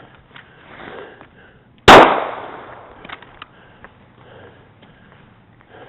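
A single pistol shot, very loud, about two seconds in, its echo dying away over about a second.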